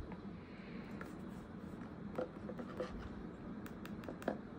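Sneakers being handled in their cardboard box, with soft rustling of tissue paper and packaging. Several light clicks and taps come from about halfway through, the sharpest near the end.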